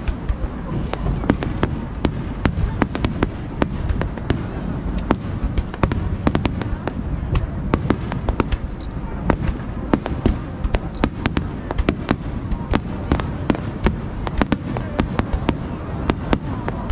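Fireworks display in full barrage: several sharp bangs and crackles a second over a constant low rumble.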